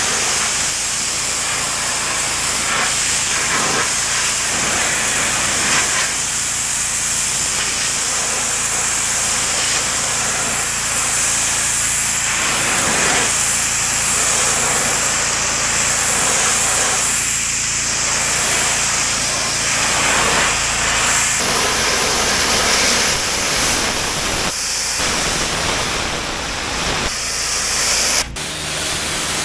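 Pressure washer jet spraying onto a patio surface: a steady, loud hiss of water under a low, steady machine hum. The sound changes abruptly near the end.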